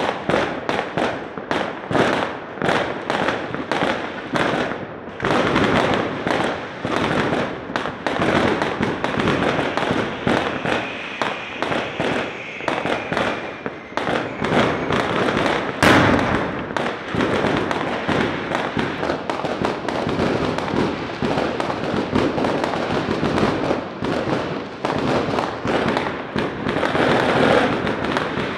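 Fireworks going off without pause: a dense, rapid run of bangs and crackles from shells and rockets bursting overhead. The single loudest bang comes about halfway through.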